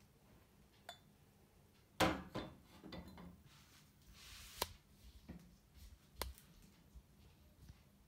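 Aluminium-based stovetop coffee maker with a ceramic top set down on a gas stove's metal grate: a loud clank about two seconds in, then lighter knocks, a brief hiss and a few sharp clicks as it is settled over the burner.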